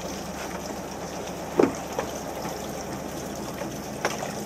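Small fishing boat's engine running steadily at idle, with water splashing. A loud, short knock about a second and a half in, with lighter clicks near two and four seconds.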